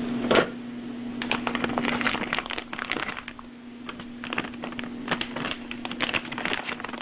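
Food crackling and popping on a hot George Foreman contact grill, an irregular run of crackles.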